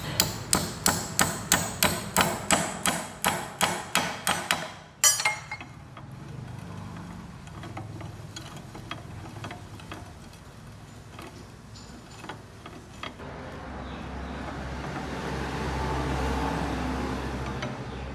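Hammer driving a steel pin into a pinion gear on a lathe's lead screw shaft: a rapid series of sharp metallic strikes, about three a second, then one harder blow about five seconds in. Faint ticks and a low rumble follow.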